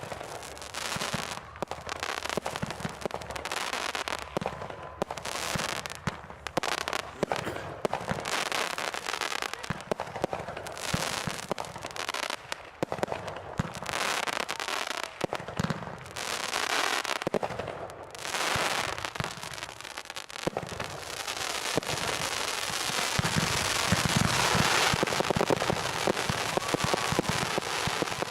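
Consumer fireworks going off in rapid succession: a steady barrage of bangs and crackling, building to a denser, louder stretch near the end.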